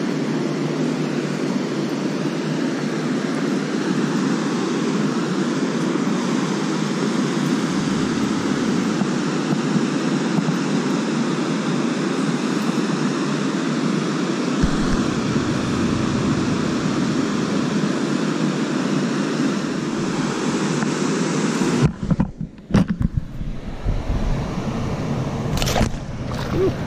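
Steady rush of water pouring through a small dam spillway. About 22 seconds in the rushing dips and turns uneven, and a short splash comes near the end.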